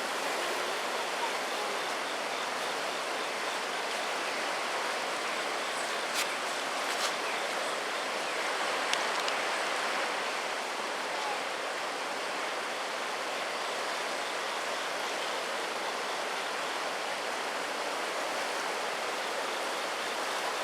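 A river swollen by typhoon rain, rushing and churning steadily in flood, with a few faint knocks about six to nine seconds in.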